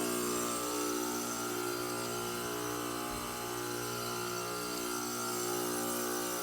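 2016 Ruud heat pump outdoor unit running steadily in heating mode, its compressor and fan giving a constant hum with a strong low tone.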